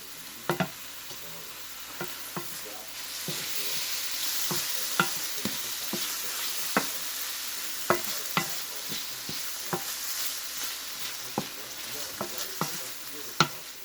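Marinated meat sizzling in a hot pan. The sizzle grows louder about three seconds in, and sharp, irregular clicks of a utensil stirring and tapping against the pan run through it.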